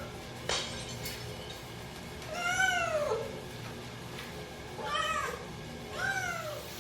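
Cat meowing three times: a long meow that rises and then falls, a short one, then another falling meow. A sharp click comes about half a second in.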